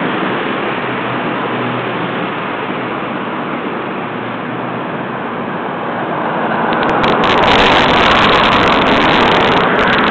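Fuji Rabbit S301 scooter's single-cylinder two-stroke engine running, a steady noisy drone that swells louder and brighter from about six seconds in.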